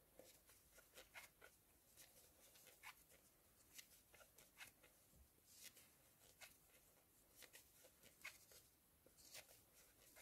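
Very faint, irregular small clicks and rustles, about one or two a second, from a metal crochet hook working plush velvet yarn as the stitches are made.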